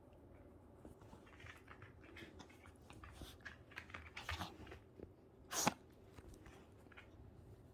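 A puppy sneezing once, short and sharp, about five and a half seconds in, among soft snuffles and small clicks.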